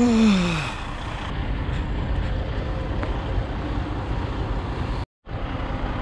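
Steady low outdoor rumble beside a parked coach bus, with a short voice sliding down in pitch at the very start.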